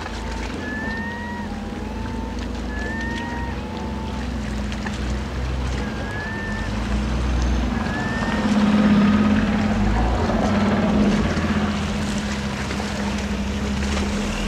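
A ferry's engines droning low and steady as it moves off, swelling louder about midway, over wind and water noise. In the first half a bird gives short rising calls about once a second.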